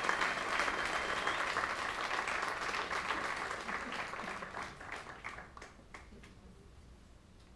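Audience applauding, dying away over the last few seconds to a few scattered claps.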